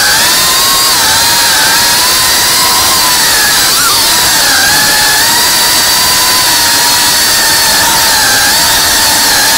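FPV drone's motors and propellers whining loudly at high speed, the pitch wavering and dipping slightly as the throttle changes.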